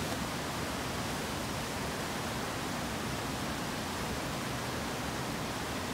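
Steady rush of a fast creek tumbling over rocks in whitewater rapids.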